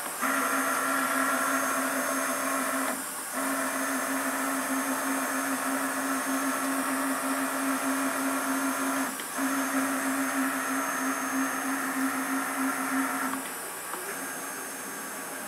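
Deckel Maho DMU 35M 5-axis CNC machining centre running: a steady motor hum, broken twice by brief dips and stopping about thirteen seconds in.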